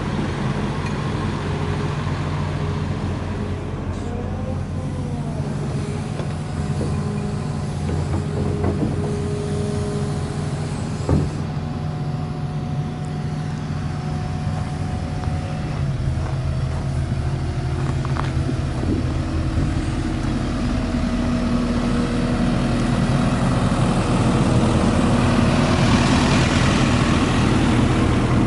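Hidromek 220LC crawler excavator's diesel engine idling steadily, with a single sharp click about eleven seconds in. The engine grows louder and hissier near the end.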